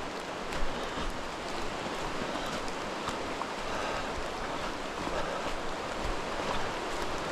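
Steady rush of water, with a soft knock about half a second in and a few faint ticks.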